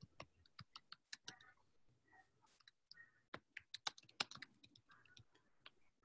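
Faint typing on a computer keyboard: irregular keystrokes with a quicker run of them a little past the middle.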